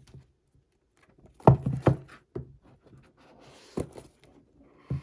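Handling of the iPad's cardboard box and packaging: two sharp knocks about a second and a half in, then a few lighter taps and a faint rustle.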